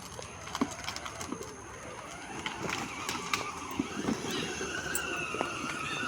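Battery-powered ride-on toy car driving, with scattered clicks and knocks and a low rumble. About four seconds in, a steady, slightly falling whine from its electric motor comes in.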